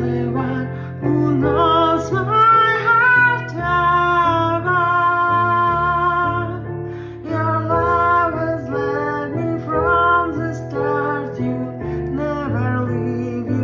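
A song: a woman singing a slow melody with long held notes over guitar accompaniment.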